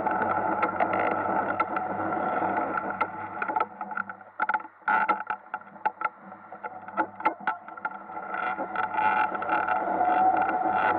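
Ice kart's motor running steadily. It drops away about four seconds in, with sharp clicks and scrapes, then builds back up in the second half.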